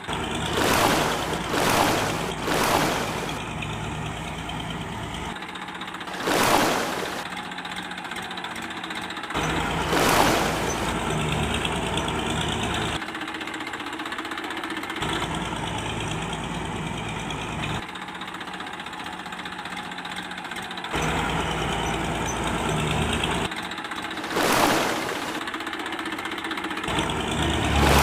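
Engine-like running sound, a low steady hum that changes abruptly at cuts every few seconds, with several brief rushing surges.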